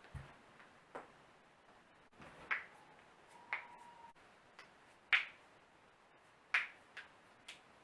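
Human joints being cracked: a string of about nine sharp pops at uneven gaps, the loudest about five seconds in.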